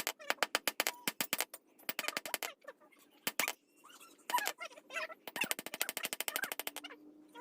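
Rapid hammering on hot steel on an anvil while forging a dao blade: runs of sharp, evenly spaced metallic strikes, about eight a second, broken by short pauses.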